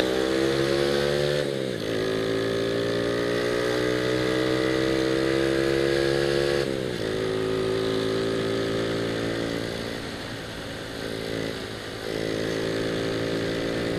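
Honda Astrea Grand's small single-cylinder four-stroke engine, breathing through a still-stock Supra X 125 FI exhaust, heard from the rider's seat while accelerating. Its pitch climbs steadily, drops sharply at gear changes about one and a half seconds in and again near seven seconds, eases off briefly around ten seconds, then pulls steadily again.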